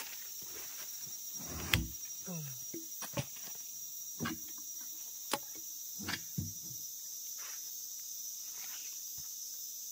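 Steady high-pitched chorus of insects such as crickets, with a handful of scattered knocks and clunks over the first several seconds.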